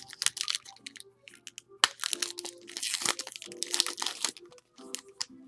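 Paper wrapper of a retail baseball card pack being torn open and crinkled as the cards are pulled out: rapid crackling and rustling, with one sharp crack about two seconds in, dying down after about four seconds. Faint background music underneath.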